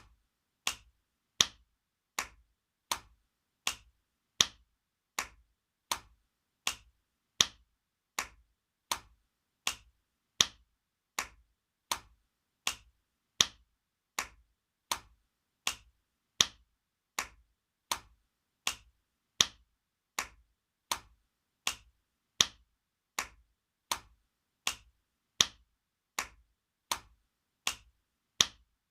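Spanking sound effect: a sharp hand slap on skin, repeated at an even pace of roughly one slap every three-quarters of a second, some slaps a little louder than others.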